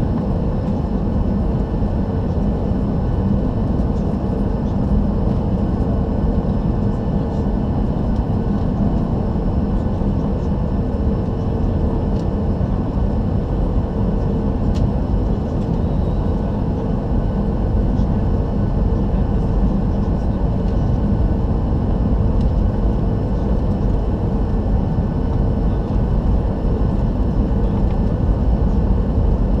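Cabin noise inside a Boeing 737-800: its CFM56 jet engines running with a steady hum over a low rumble, growing slightly louder near the end.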